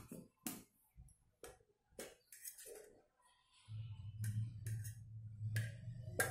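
Light clicks and clinks of a fork and fingers against stainless steel bowls while chicken pieces are turned in flour and beaten egg, coming about twice a second at first and then more sparsely. A low steady hum starts a little past halfway.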